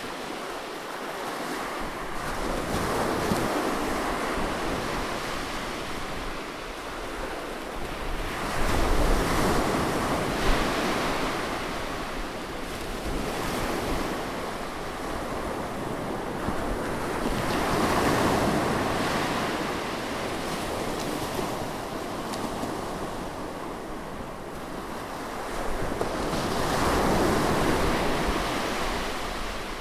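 Sea waves breaking close on the shore, the wash swelling and fading in slow surges several seconds apart.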